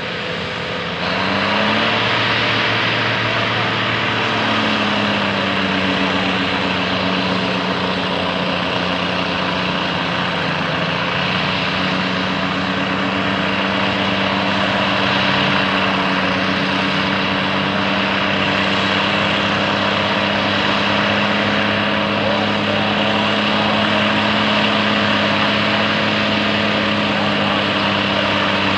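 John Deere WA-14's turbocharged diesel engine working hard as the four-wheel-drive tractor pulls a 12-bottom plow through the ground. The engine gets louder about a second in and its pitch climbs twice in the first few seconds, then it holds a steady working drone.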